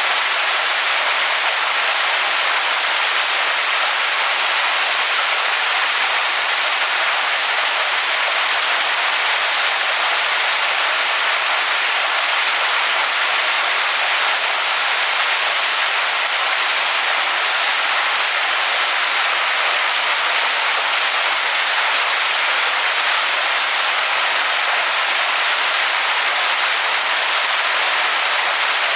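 Waterfall: water falling onto rocks, a steady, even hiss-like rush, strongest in the upper range with little low rumble.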